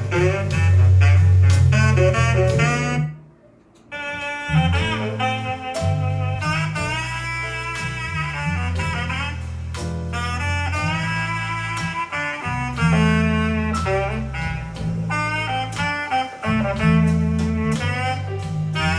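Saxophone-led jazz with a heavy bass line, played back through a Bose loudspeaker in a sound and bass test. The music cuts out for about a second near three seconds in, then resumes.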